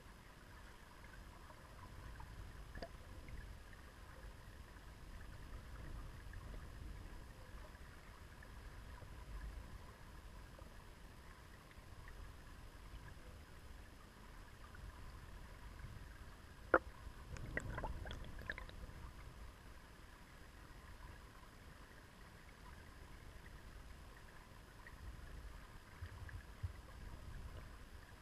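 Faint river current heard from a submerged camera: a muffled low rumble of flowing water, with one sharp click a little past the middle followed by a brief cluster of smaller ticks.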